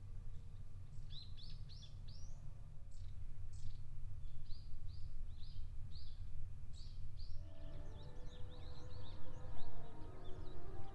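Songbirds calling: runs of short, high chirps several times a second, over a steady low rumble. About two-thirds of the way through, sustained tones in the middle register come in under the calls.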